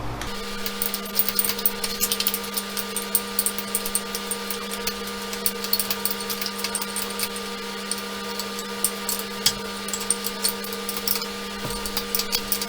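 A handheld power tool running steadily with a continuous hum and a rapid rattling clatter, used on the bolts holding the milling machine's knee plate.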